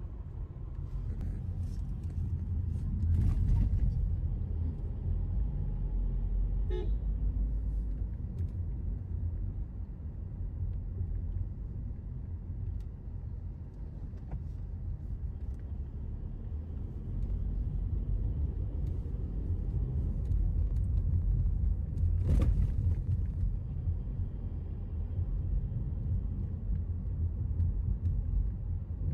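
Steady low rumble of a car driving along a road, heard from inside the cabin: engine and tyre noise. A few short sharp clicks or knocks, the loudest about 22 seconds in.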